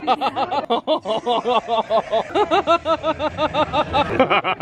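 A man's rapid giggling laugh: a quick, unbroken run of short, high-pitched syllables, each rising and falling, about six a second.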